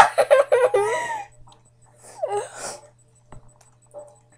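A child's high-pitched, wordless vocalizing, sliding up and down in pitch, for about the first second, with a shorter cry about two seconds in.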